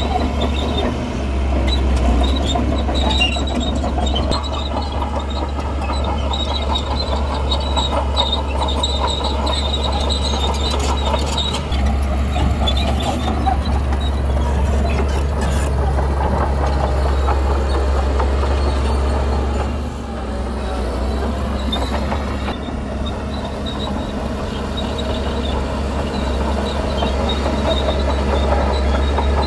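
Heavy tracked construction machinery at work: a diesel engine running steadily under load, with metallic squealing and clanking from steel tracks.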